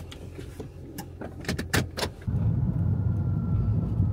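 A few sharp clicks, then the steady low rumble of a car's cabin on the move, with engine and road noise.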